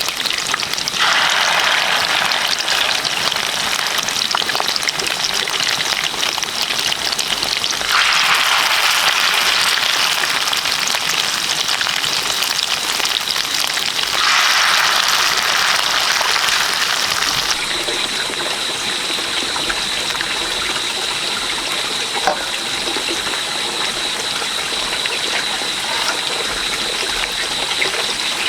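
Running water, a steady rushing hiss that swells louder three times and changes character about two-thirds of the way through.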